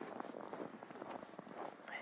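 Footsteps crunching in deep snow, a quick uneven run of small crackles.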